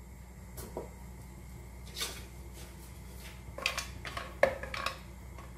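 Wooden spatula knocking and scraping against a non-stick frying pan while stirring a lump of asafoetida in oil. A few scattered light knocks come first, then a quick run of knocks in the second half, the loudest about four and a half seconds in.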